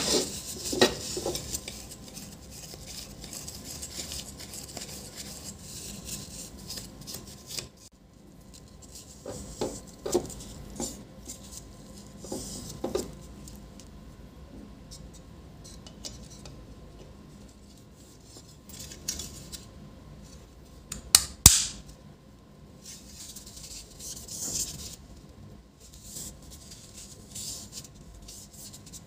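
Tissue rubbing inside the plastic housing of an HP LaserJet M501's laser scanner unit while small plastic and metal parts are handled: rustling and rubbing with scattered clicks, and one sharp knock about two-thirds of the way through.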